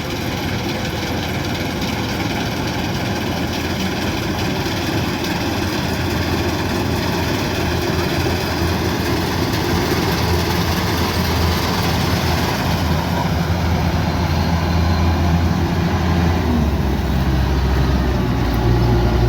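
Kubota DC108X combine harvester's diesel engine running steadily, its low rumble growing gradually louder over the stretch.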